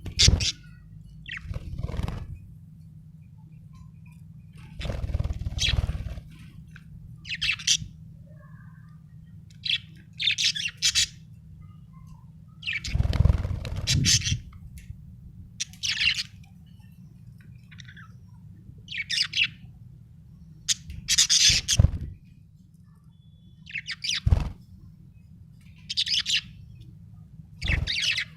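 Budgerigar chirping in short, high-pitched bursts every second or two, over a steady low hum, with a few dull thumps among the chirps.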